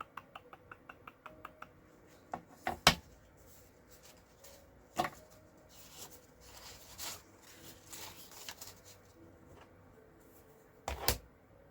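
Craft supplies being handled on a desk: a quick run of about ten light clicks, then several sharp knocks and a stretch of paper rustling.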